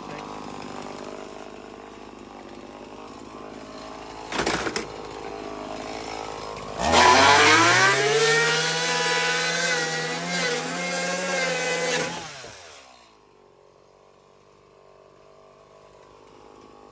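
Chainsaw idling, with a sharp knock about four and a half seconds in, then revved to full throttle about seven seconds in and held there for about five seconds as it cuts through the boat's transom. It then drops back to a quiet idle.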